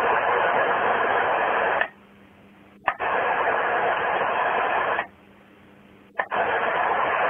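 CB radio receiver on the 11 m band giving out loud, steady static hiss. The hiss drops out twice for about a second, leaving a faint low hum, and comes back each time with a sharp click.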